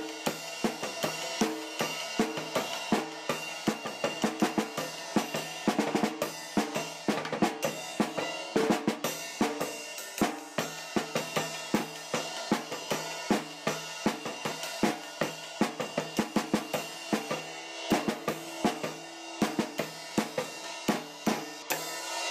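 Instrumental theme music with a busy drum-kit beat: snare, bass drum and cymbal hits in a steady rhythm over pitched instruments.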